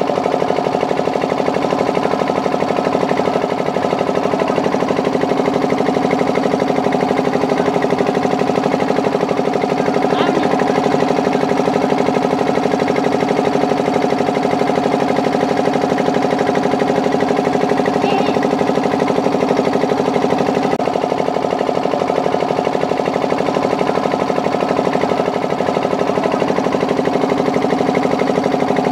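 Outboard motor idling steadily, a fast even pulsing with a constant hum.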